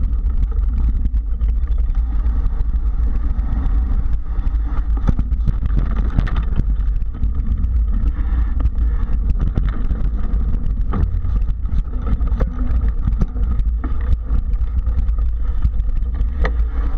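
Mountain bike rolling over a dirt and sand trail, heard through a camera mounted on the handlebars: a heavy steady rumble of wind and tyre noise, with frequent knocks and rattles as the bike and mount jolt over bumps.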